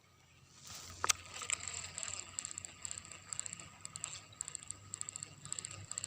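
Abu Garcia Pro Max 3 baitcasting reel being cranked, its gears clicking rapidly and unevenly, with a sharp click about a second in.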